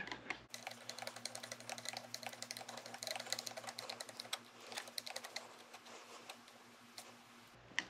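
Faint, irregular small clicks and taps of a screwdriver turning the small pivot screw of a motorcycle brake lever, snugging it down lightly, with a low steady hum underneath.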